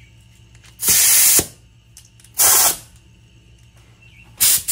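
Air blow gun on an air hose fed from a Craftsman pancake compressor, fired in three short blasts of hissing compressed air. The first blast is the longest, at about half a second, and the last starts near the end.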